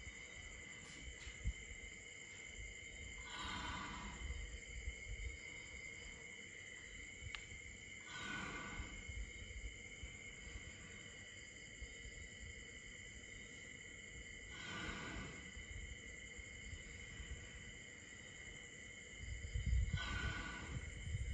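Young elephant breathing slowly in its sleep, a soft whoosh about every five to six seconds, over a steady chorus of night insects. A louder low rumble comes near the end.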